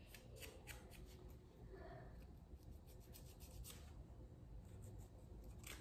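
Nail file scraping faintly across hardened acrylic dip-powder nails in runs of quick short strokes, about six a second, with pauses between the runs: filing and shaping the nails after the dip powder and activator have dried.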